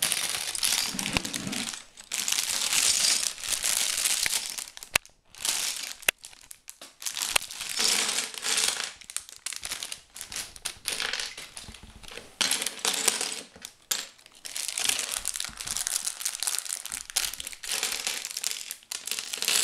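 A plastic parts bag of Lego pieces crinkling as it is handled and emptied, with loose plastic Lego bricks clattering and clicking as they spill onto the table and are sorted through, in irregular bursts.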